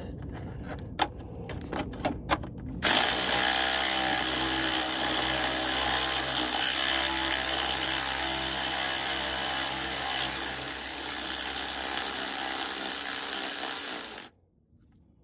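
Electric ratchet with a 10 mm socket running steadily for about eleven seconds as it backs out a bolt, then stopping abruptly. A few sharp clicks and knocks come before it starts.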